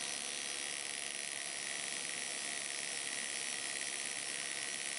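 Electric rotary tool spinning a flapper-peening flap in free air at around 4200 RPM, a steady high whirring hiss, as the motor speed is dialed down to match a stroboscope's flash rate.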